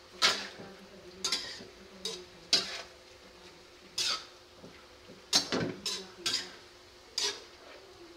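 A metal spatula scraping and knocking against a stainless steel wok as cubed tofu is stir-fried: about ten sharp strokes at uneven intervals, several close together around the middle.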